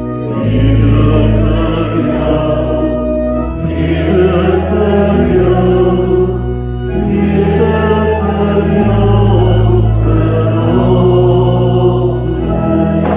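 Congregation singing a slow hymn, accompanied by a church organ whose held bass notes change every second or two.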